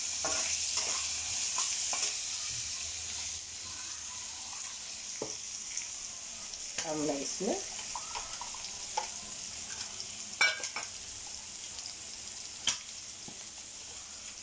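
Chopped onion frying in oil in a non-stick kadhai, a steady sizzle that is louder in the first few seconds, while a steel slotted spoon stirs it. Two sharp metal clinks of the spoon against the pan in the second half.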